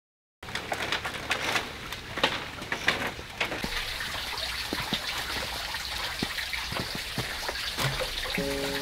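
Water trickling and splashing, with scattered small clicks and knocks. It starts abruptly about half a second in.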